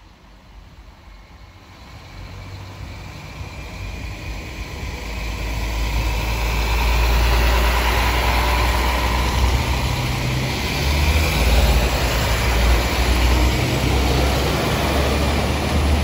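Irish Rail 22000 class diesel multiple unit pulling away, its underfloor diesel engines running under power as the carriages pass close by. A low engine hum and a rush of running noise grow louder over the first several seconds, then hold steady and loud.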